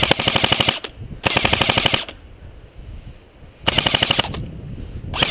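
Airsoft rifle firing full-auto bursts, a rapid even rattle of shots: two bursts of about a second, a shorter one near the end, and another starting just as it ends.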